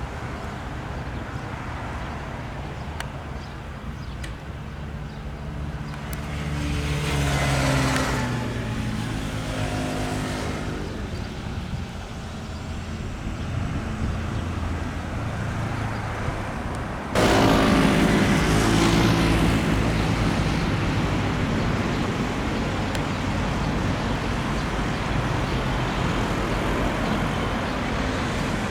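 Cessna 152's four-cylinder piston engine and propeller passing by, louder about seven seconds in, its pitch falling as it goes past. About seventeen seconds in the level jumps suddenly to a louder pass, again falling in pitch, then a steady engine drone.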